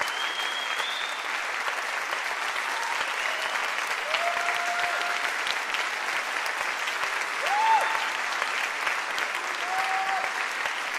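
Audience and choir applauding steadily, a dense wash of clapping, with scattered cheers over it, the loudest about seven and a half seconds in.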